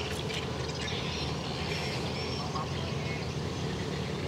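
Outdoor ambience: birds calling in short faint bursts over a steady low rumble.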